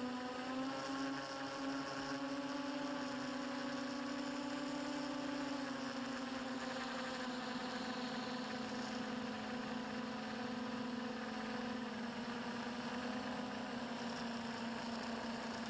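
A drone's electric motors and propellers whirring in flight: a steady hum whose pitch shifts a little as the throttle changes, dipping about six seconds in and again near twelve seconds.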